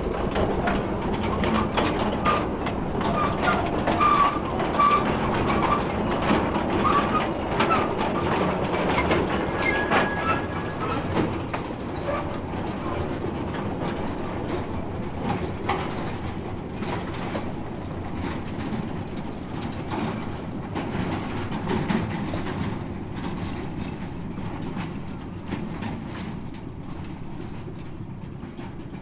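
A narrow-gauge locomotive train running on the track: a steady low running noise with rapid clicking and clanking of wheels and wagons over the rails, and a few short high squeals in the first several seconds. It slowly grows fainter toward the end.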